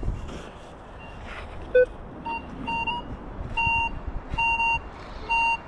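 Metal detector beeping over a dug hole: short beeps of one high tone repeating about once a second, some held a little longer, with a single lower, shorter blip about two seconds in. The repeated signal means the metal target is still in the hole.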